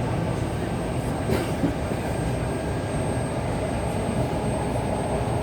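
Suburban electric train running, heard from inside the carriage: a steady rumble of wheels on the rails, with a thin high tone throughout and a couple of light knocks about a second in.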